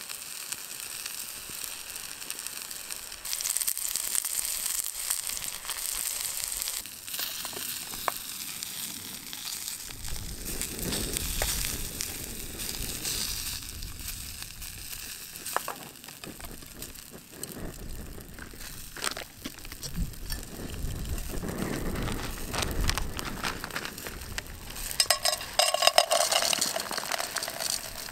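Sliced vegetables sizzling and frying in a small pan on a folding camp stove, with the pan now and then stirred and scraped with a utensil.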